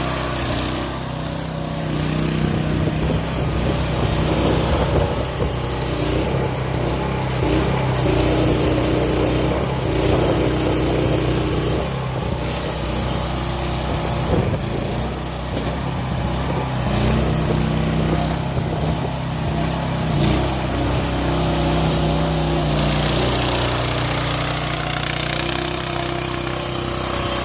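AGROTK QH12R mini excavator's small engine running continuously, its pitch dropping and rising several times.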